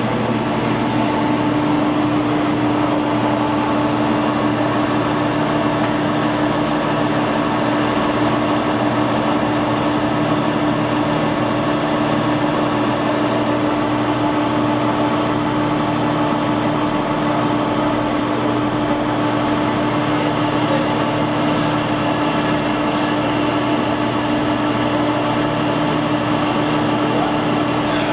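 Blanchard 22K-42 vertical-spindle rotary surface grinder running under power, its 50 hp grinding-wheel spindle and magnetic chuck turning as the wheel is fed down. A steady mechanical drone, with a steady hum that comes in about half a second in.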